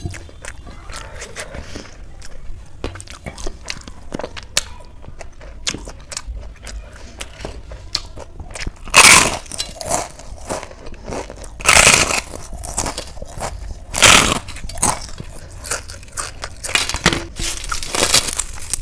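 Close-miked eating: steady chewing and small crackly mouth sounds, with three loud crunchy bites about 9, 12 and 14 seconds in and a few smaller crunches near the end.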